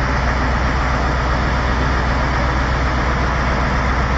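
Heavy truck's diesel engine running steadily, a low even drone with no changes in speed.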